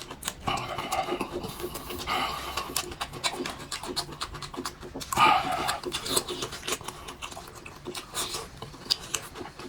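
A person eating with mouth close to the microphone: wet chewing clicks and smacks, with heavy panting breaths twice.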